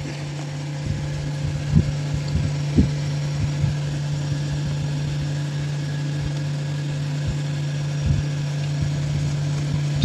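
Toshiba Glacio two-door refrigerator running in its cooling cycle with the freezer back panel off: a steady low hum from the compressor and fan, while frost begins to form on the evaporator. A few soft thumps come through it, the clearest near two and three seconds in.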